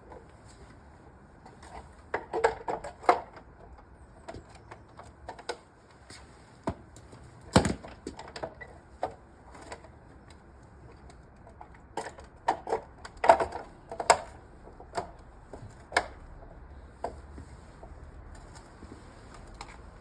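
Irregular clicks and knocks of hand work on a plastic wall-planter base plate being fixed to a masonry wall. They come in small clusters, with one sharp knock, the loudest, about seven and a half seconds in. There is no steady drill or driver whine.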